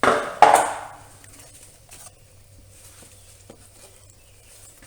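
Plastic battery tray being pulled out of the engine bay: two loud scraping knocks about half a second apart, then a few faint clicks.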